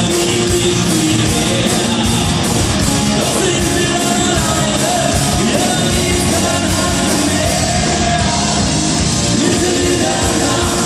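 Rock band playing live, with a lead voice singing over a steady drumbeat; loud and even throughout.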